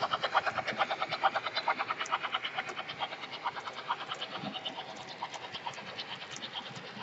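Märklin HO model freight wagons rolling along the track, their wheels clicking over the rail joints in a rapid, even rhythm of about seven clicks a second that fades steadily as the train recedes.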